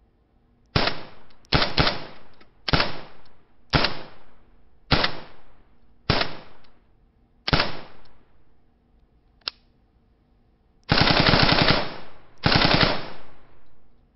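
Dubbed rifle gunfire sound effect: a string of single shots about a second apart, each with an echoing tail, then a short sharp click, then two long fully automatic bursts near the end.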